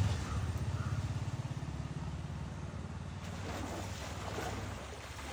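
A motor engine running with a low, even pulse, fading steadily as it moves away.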